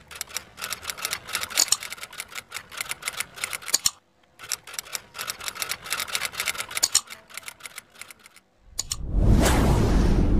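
Typewriter sound effect: rapid key clacks in a run of about four seconds, a short break, then another run of about three seconds that thins out. Near the end a loud rushing rumble swells up.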